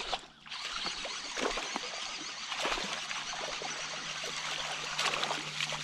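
Water splashing and trickling in short, irregular bursts, with a faint steady hum coming in about three seconds in.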